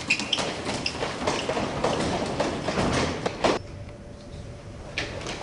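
Several people running on a hard tiled hallway floor: a quick patter of footsteps with a few brief shoe squeaks at the start. The running fades out about three and a half seconds in, and footsteps pick up again near the end.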